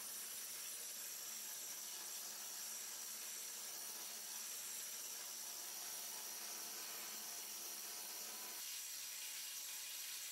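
Faint steady hiss with no distinct strokes or impacts.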